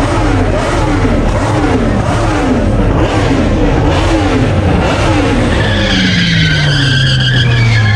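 Car doing a burnout: the engine revs rise and fall over and over, less than a second apart, with the tyres spinning. From about six seconds in, a steady tyre squeal joins and the engine note slowly drops.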